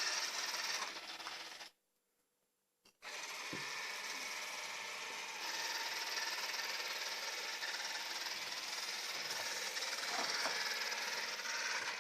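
Robot vacuum cleaner running, its suction fan and brushes giving a steady whirring hiss. The sound drops out for about a second near the start, then carries on steadily.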